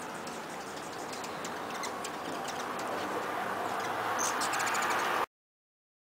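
Hummingbirds giving many quick, high chips and ticks over a steady rushing background that slowly grows louder. The sound cuts off abruptly about five seconds in.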